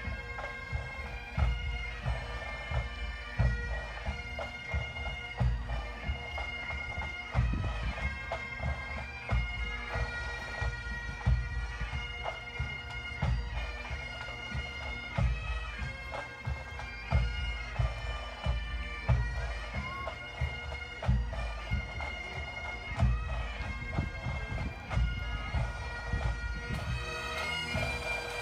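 Pipe band playing: massed Highland bagpipes carrying a tune over their steady drone, with drums beating time underneath.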